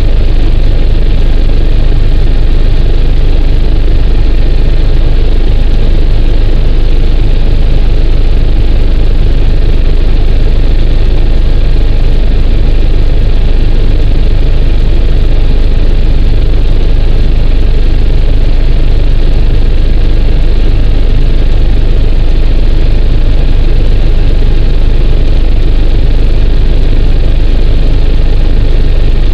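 Steady cabin drone of an AgustaWestland AW109 twin-turbine helicopter in cruise flight, heard inside the cockpit. A deep rotor and engine rumble runs under a faint steady turbine whine, unchanging throughout.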